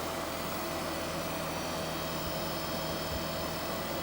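Treadmill DC motor driven by an MC2100 motor controller, running steadily near its top speed of about 2,500 RPM: an even whir with a faint high whine.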